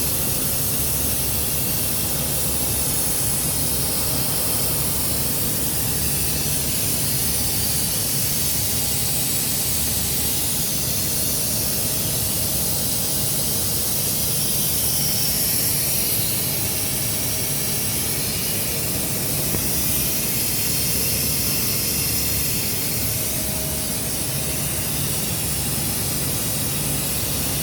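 A steady hiss that keeps an even level throughout, with a low hum and a few faint steady tones underneath.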